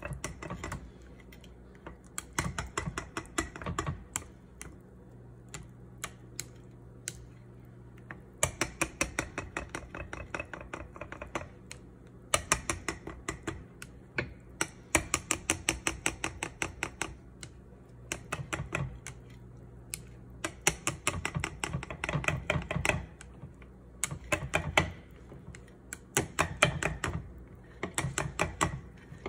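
Plastic chopsticks whisking a thin crepe batter in a glass bowl, tapping rapidly against the glass. The ticking comes in quick runs of a second or two with short pauses between them.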